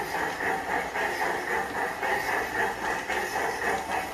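G-scale PIKO model train running along its track, a steady mechanical running sound with an even pulse of about three beats a second.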